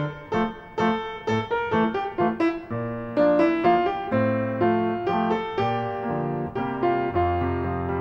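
Piano music: a melody of separate struck notes, with sustained lower notes building underneath from a few seconds in.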